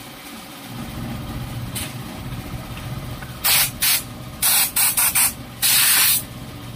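Aerosol cleaner sprayed into a scooter's rear wheel hub and brake drum in about seven short hissing bursts, starting about halfway through; the last burst is the longest.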